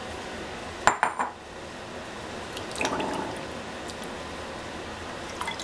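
Hands rinsing raw chicken pieces in a ceramic bowl of water: water sloshing and dripping, with a quick cluster of sharp clinks against the bowls about a second in.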